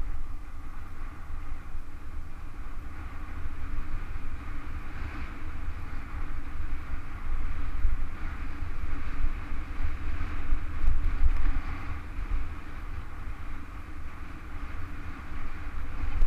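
Wind buffeting the microphone of a mountain bike's action camera in a steady low rumble, over the noise of the bike's tyres rolling down a rough dirt track. The noise rises and falls unevenly with speed and the bumps.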